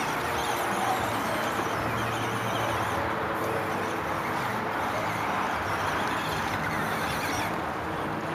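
Traxxas Stampede radio-controlled monster truck running steadily as it drives across a dirt yard.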